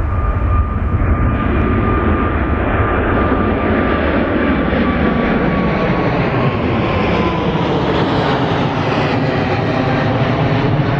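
Boeing 777-300ER's two GE90-115B turbofans at takeoff thrust as the jet climbs out overhead: a loud, steady jet rumble and hiss with a whining tone that slides down in pitch as the aircraft passes over, past the middle.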